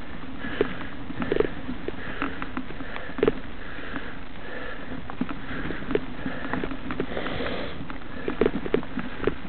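Mountain bike rolling along a dirt forest trail: steady tyre and air noise, with scattered knocks and rattles from the bike going over bumps.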